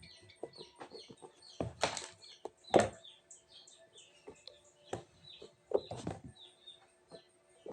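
Small birds chirping in quick high twitters throughout, with several brief louder rustles and knocks from the squishy toys and their plastic packaging being handled, the loudest about three seconds in.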